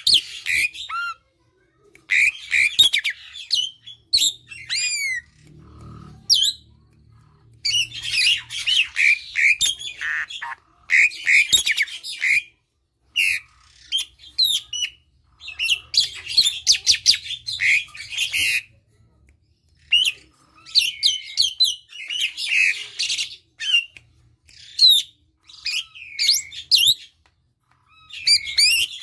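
Asian pied starling (jalak suren) singing at close range: bursts of harsh chattering and squawks mixed with whistled, downward-sliding notes, in phrases of one to three seconds with short pauses between.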